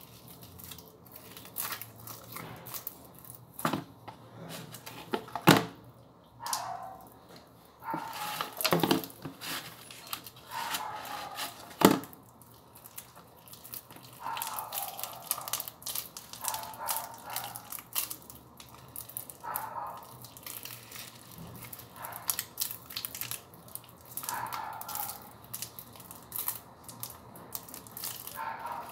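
Sticky cornstarch slime being kneaded, squeezed and pulled apart by hand, giving an irregular wet crackling and tearing, with two loud sharp snaps about five and a half and twelve seconds in.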